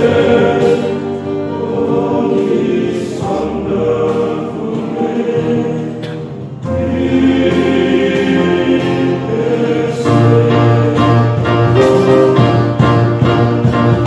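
Young men's choir singing a hymn. The singing dips briefly around six seconds in and grows fuller and louder from about ten seconds in.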